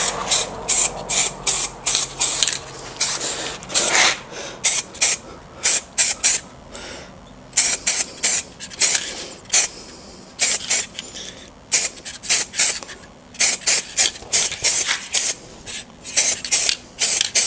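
Aerosol spray-paint can hissing in quick short bursts, about two or three a second, with a few brief pauses.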